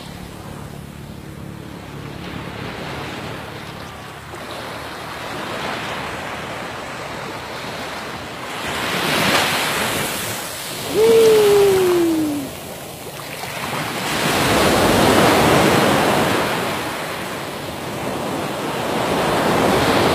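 Small waves breaking and washing up a sandy beach in slow surges, with some wind on the microphone. A little past halfway, a single falling tone about a second and a half long stands out as the loudest sound.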